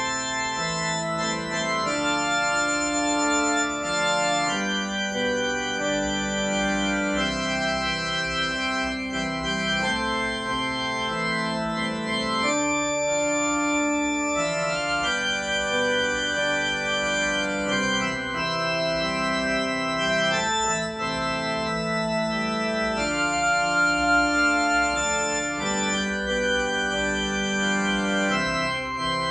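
A Kurzweil digital keyboard played with an organ voice: a slow Catholic hymn in held chords that change every second or two, purely instrumental with no singing.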